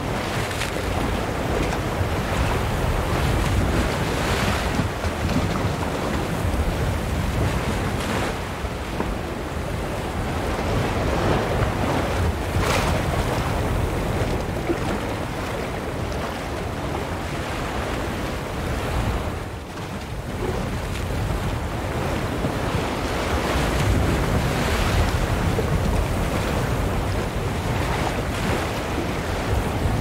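Ocean waves splashing onto a shore: a continuous rush of surf that swells and eases every few seconds, with a sharper splash about twelve seconds in and a brief lull just before twenty seconds.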